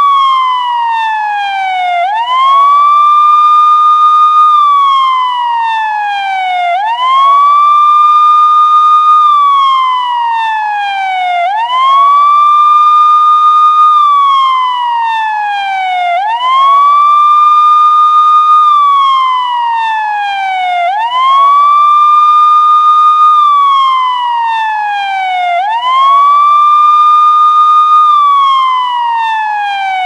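Police siren sounding a slow wail: each cycle sweeps up quickly, holds a high steady tone for about two seconds, then slides slowly down, repeating roughly every four to five seconds, about six times in all.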